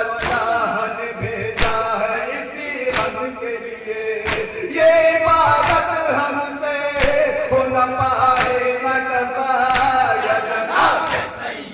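Male voices chanting a nauha, a Muharram lament, led by one voice with others joining. Sharp strikes, like hands slapping, keep time about every second and a half.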